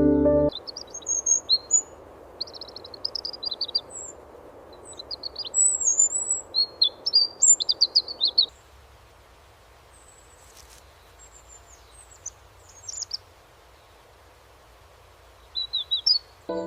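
Small bird chirping in quick twittering runs, busy for the first half and then only a few scattered calls, over a faint steady hiss that cuts off about halfway through.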